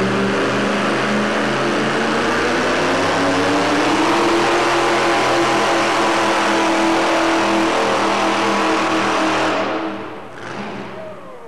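Modified pickup pulling truck's engine running hard at high revs under load as it drags a weight sled, loud and fairly steady in pitch. About ten seconds in the engine sound drops off sharply as the pull ends.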